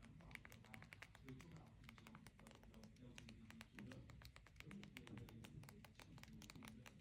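Faint, quick, irregular clicking of keys being typed on the Unihertz Titan 2's physical QWERTY keyboard, several clicks a second, over faint background music.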